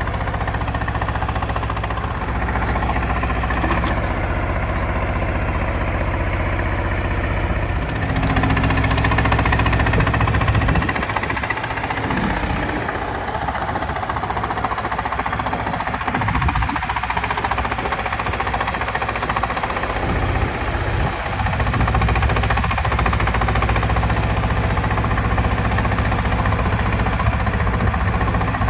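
Detroit Diesel 6V92TA two-stroke V6 diesel in an FTF logging truck, running with a hard, rattling note. It grows louder about eight seconds in, eases off near eleven seconds, then runs steadily.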